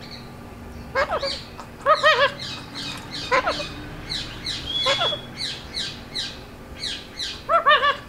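Rose-ringed parakeet (Indian ringneck) calling in short, harsh squawks every second or so, with a run of quicker, higher chirps in the middle.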